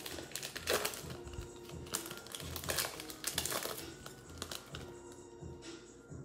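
Foil wrapper of a Panini Mosaic football card pack crinkling as gloved hands tear it open and handle it, with the crackling thinning out over the last couple of seconds.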